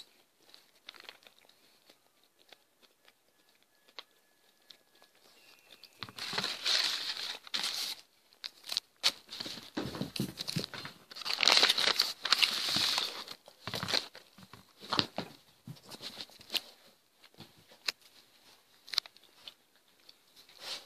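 Paper sandwich wrapper crinkling and rustling in irregular bursts as the sandwich is handled on it, starting about six seconds in and thinning to scattered small crackles near the end.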